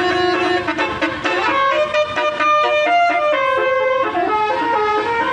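Bus telolet horn playing a quick multi-note tune, trumpet-like notes stepping up and down in pitch.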